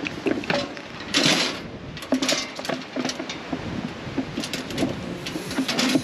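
Aerosol wool-marker spray can hissing in short bursts about one and two seconds in, with knocks and rattles from a steel sheep-weighing crate.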